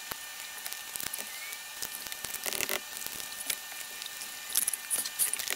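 Hands rustling and pressing pickup-truck floor carpet and trim back into place along the door sill, with scattered soft clicks and scuffs that grow busier and louder near the end.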